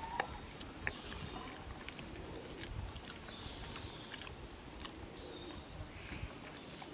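Mini pig's mouth working wetly at the wire mesh and metal frame of its pen, the repetitive licking at nothing that is a sign of stereotypic, abnormal behaviour in confinement. Scattered clicks, two sharp ones in the first second.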